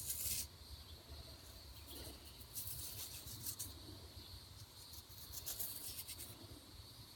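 Fingers rubbing sandy dirt off a chipped stone flake, a gritty scraping in three short spells, over a steady high insect drone.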